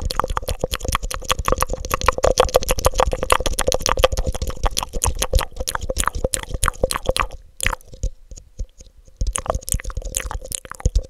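Fast, wet mouth clicks and smacks made into a black cone held over the microphone. They come in a dense, rapid run, stop for about two seconds roughly three quarters of the way through, then start again.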